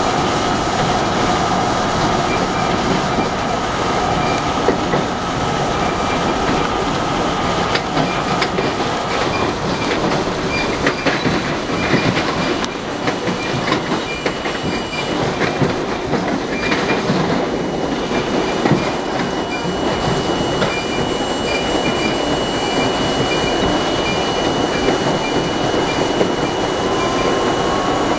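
An R32 New York City subway car running at speed, heard from inside the car: a steady, loud rumble and rattle of steel wheels on the rails, with clicks over rail joints throughout. A thin high steady tone stops about a third of the way in.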